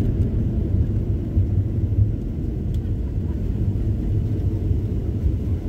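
Steady low rumble inside the cabin of a Boeing 737-900 rolling down the runway after touchdown: its CFM56 engines and the wheels on the runway.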